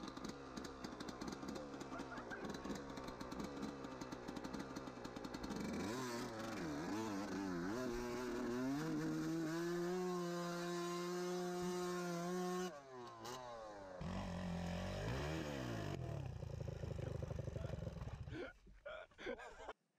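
Dirt bike engine revving: its pitch swings up and down, then holds steady at high revs for a few seconds before dropping sharply, then rises and falls again. The sound cuts off suddenly near the end.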